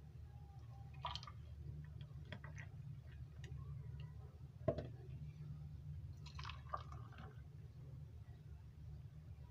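Milkshake being poured from a jug into glasses, with faint liquid sounds and scattered clinks and knocks of glass; one sharper knock about halfway. A steady low hum runs underneath.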